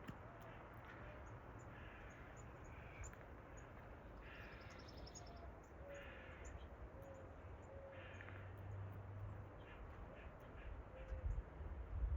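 A squirrel barking: a string of harsh, short alarm calls repeated every second or so, with faint small-bird chirps in the background.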